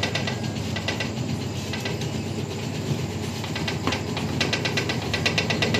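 Motorised AWI tobacco-slicing machine running: a steady motor hum under a fast, even ticking clatter of the cutter, which fades in the middle and comes back strongly about four and a half seconds in.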